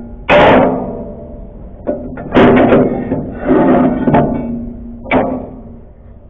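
Steel truck leaf-spring leaves clanking against each other as they are handled, a series of sharp metal knocks that each ring briefly. The loudest come about a third of a second in and about two and a half seconds in.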